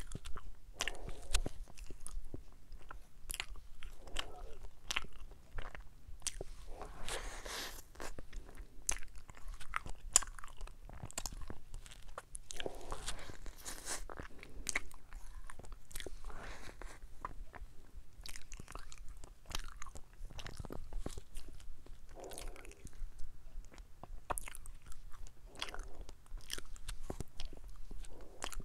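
A person biting into and chewing a Bababam Sand ice cream sandwich, with many small sharp crackles scattered between softer chewing sounds.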